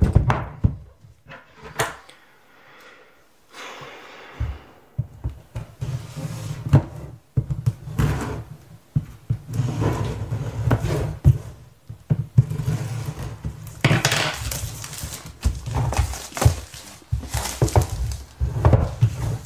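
Handling noise from a cardboard phone box being turned, slid and pressed on a wooden table: irregular scraping, rustling and knocks. It is fairly quiet for the first few seconds and busier from about five seconds in.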